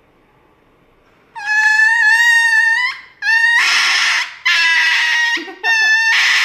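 Small white dog screaming as it gets an injection: four long, high-pitched cries, starting about a second in, each held for a second or more with short breaks between.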